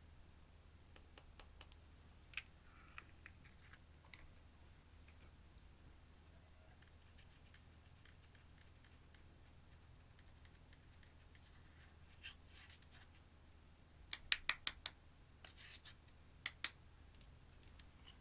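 Clear slime being worked by hand, giving sharp clicks and pops in quick clusters; the loudest run is about five clicks close together some fourteen seconds in.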